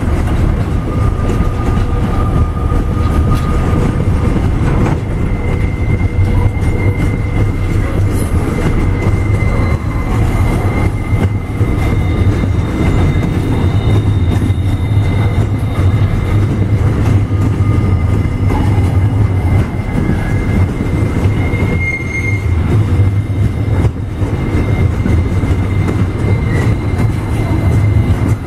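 Loaded container wagons of a long freight train rolling past on the rails, a steady low rumble of wheels on track. Thin, high wheel squeals come and go over it.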